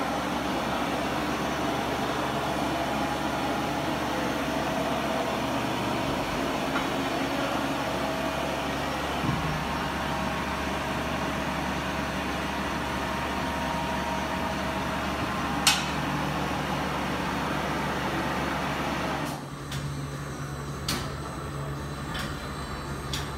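AMF Glen 340 mixer running with a steady motor hum that cuts out about nineteen seconds in. A sharp click comes a few seconds before the stop, and a few light clicks come after it.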